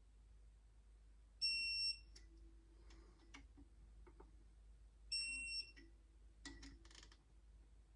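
Two short, high electronic beeps, each about half a second long and a few seconds apart, with faint tool clicks and light knocks between and after them.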